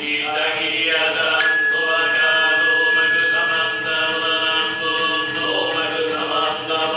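Japanese esoteric Buddhist mantra chanting, voices holding steady reciting pitches. About a second and a half in, a ritual bell is struck once and rings on with a clear high tone.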